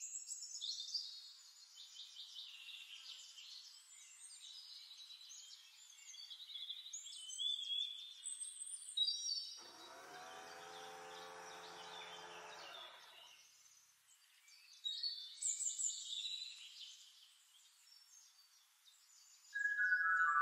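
Birds chirping and singing, short high calls coming in clusters. About ten seconds in a lower, drawn-out pitched sound lasts about three seconds.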